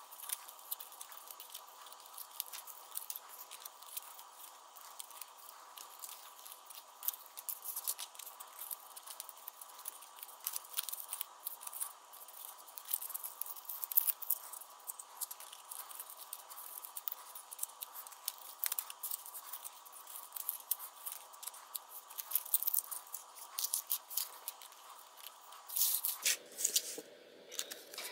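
White cardstock paper parts being folded, pressed together and handled: a busy, irregular crisp rustling and crackling of the card, with light ticks and taps.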